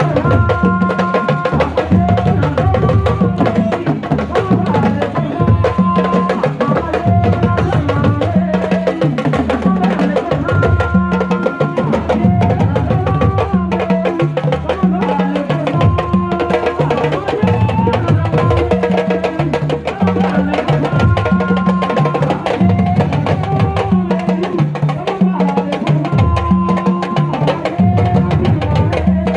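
Music with busy, driving percussion and a held, wavering melody line over a steady low beat.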